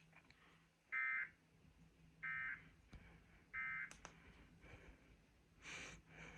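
Emergency Alert System data tones: three short, identical bursts of warbling digital tone, each about a third of a second and a little over a second apart, the end-of-message code that closes an EAS test. A faint steady hum lies underneath, and a brief noise comes near the end.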